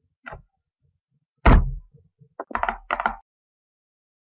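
An Acer laptop's lid pushed shut with a loud thunk about one and a half seconds in, after a light click, followed by a quick run of knocks and clatter.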